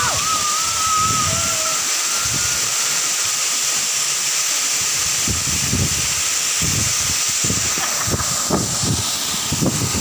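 Steady rush of a waterfall pouring into a rock pool, with uneven low splashes in the water and a long high squeal in the first couple of seconds.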